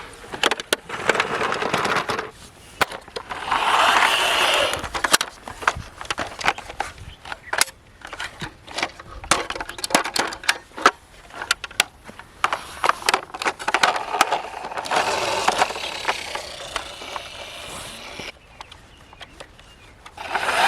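Die-cast toy vehicles being handled: a long run of irregular clicks and knocks, with a few stretches of rolling or scraping, like toy wheels running over a surface.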